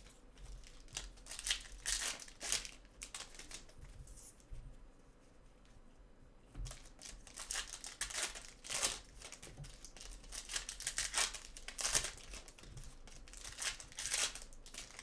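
Trading card pack wrappers crinkling and tearing as packs are opened and the cards handled, in a run of short bursts with a quieter stretch near the middle.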